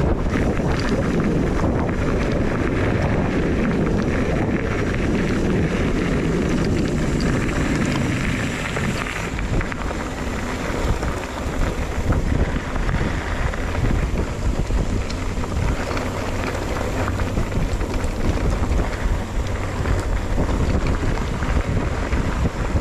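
Mountain bike ride on a dirt trail: wind rushing over the microphone as a steady loud rumble, with many small knocks and rattles from the bike running over the ground.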